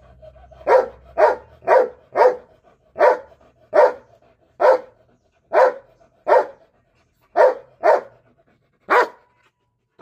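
Belgian Malinois barking repeatedly, about a dozen loud single barks at an uneven pace of roughly one a second, some in quick pairs or threes.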